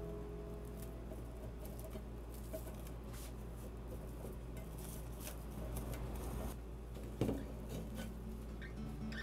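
Plastic cling film stretched over a square stainless-steel ring mould, crinkling and rustling in scattered small crackles as hands smooth it taut. There is one sharp tap about seven seconds in as the mould is handled.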